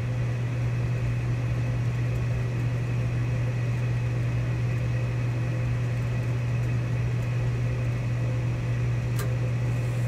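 Gas furnace draft inducer motor running with a steady low hum while the furnace goes through its ignition sequence, in the run-up to the burners lighting. A faint single click sounds about nine seconds in.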